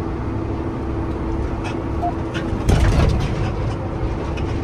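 Tractor running under way, a steady engine rumble with a constant hum, and a brief louder knock about three seconds in.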